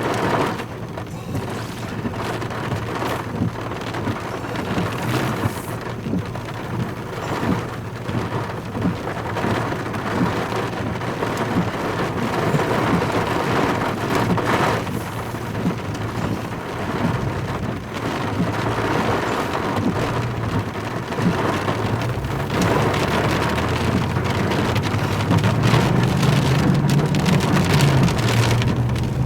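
Rain pattering on a vehicle's roof and glass, a dense steady patter of drops, with the vehicle's engine running under it as a low hum that rises in pitch near the end.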